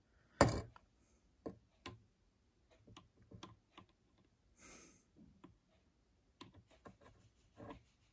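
Faint, scattered clicks and light metallic taps of an oil can's spout and pump as oil is dropped into the lubricating holes of a Wilesco D16 toy steam engine, the sharpest tap about half a second in. A short soft hiss comes near the middle.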